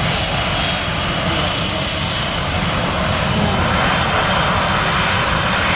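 Panavia Tornado's twin RB199 turbofan jet engines running loud and steady, a dense rush of jet noise with a thin high whine above it.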